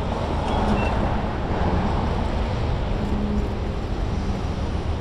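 City street traffic: a steady rush of passing cars and engines.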